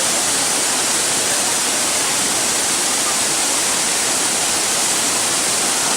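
Waterfall crashing steadily into a pool, a constant loud rush of falling water.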